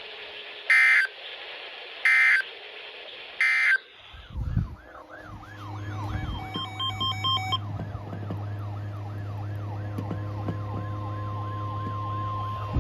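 NOAA Weather Radio SAME end-of-message signal: three short bursts of warbling digital data tones about a second and a half apart, closing the special marine warning. About four seconds in, a low hum sets in under a tone that rises and falls over and over like a siren, and a steady tone joins near the end.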